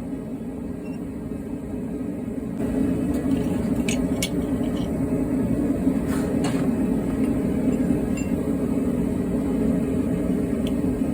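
A steady low mechanical roar that steps up in loudness about two and a half seconds in, with a few light metallic clinks near the middle.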